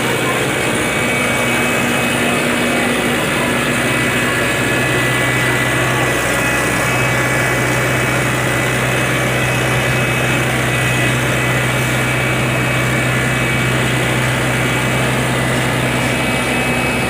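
Heavy diesel road-paving machinery running steadily at a worksite, a constant engine drone with a steady low hum and a higher whine over it.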